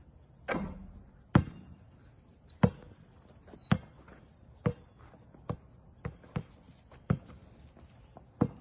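Basketballs bouncing on an asphalt court: about a dozen sharp, separate thuds at uneven spacing, roughly one a second, some closer together.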